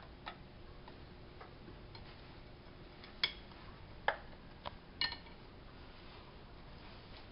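A few scattered clicks and clinks of kitchenware being handled: a knife, a plastic tub and a plate on a stainless-steel counter. The loudest, about three seconds in and again near five seconds, ring briefly.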